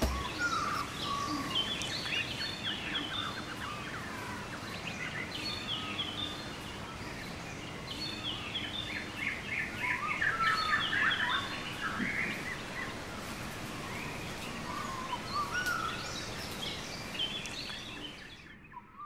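Woodland birdsong: several birds chirping and trilling over a steady outdoor hiss, fading out near the end.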